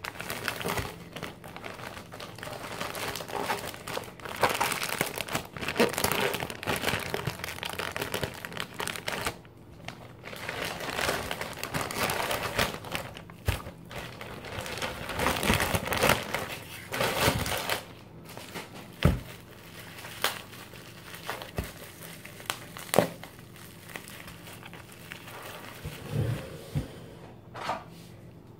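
Plastic courier mailer bag being torn open and crinkled, then the bubble-wrapped package inside rustling as it is pulled out and handled. The crinkling thins out about two thirds of the way through, leaving a few sharp knocks.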